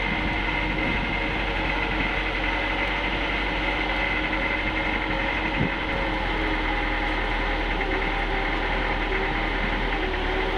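Small motorboat's engine running steadily as the boat moves across the lake, with one brief thump a little past halfway.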